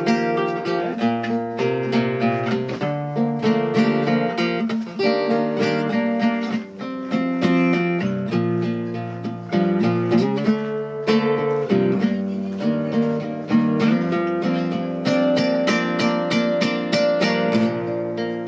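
Solo classical guitar playing an instrumental melody over bass notes, in a steady stream of plucked notes, tuned to A = 432 Hz.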